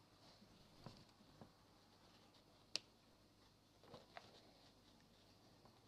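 Near silence: room tone with a few faint taps and clicks, one sharper click near the middle.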